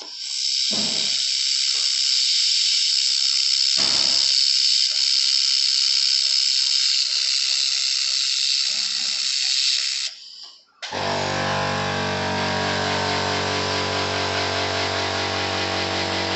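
A 1500 W handheld fiber laser welder firing continuously along a steel seam gives a steady high hiss for about ten seconds, with two brief low thumps early on, then cuts off abruptly. After a short pause a steady humming drone of many tones starts.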